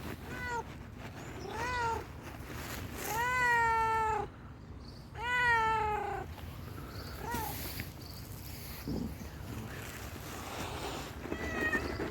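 A hungry tuxedo cat meowing repeatedly: about six meows, short ones around two long drawn-out calls in the middle, the last near the end.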